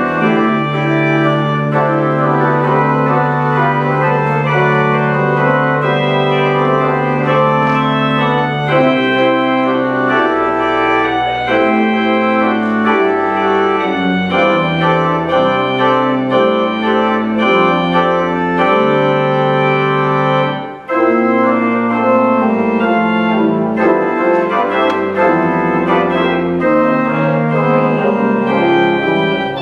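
Church organ playing a postlude: sustained chords over a long-held low pedal note, then moving bass notes, with a brief break about two-thirds of the way through.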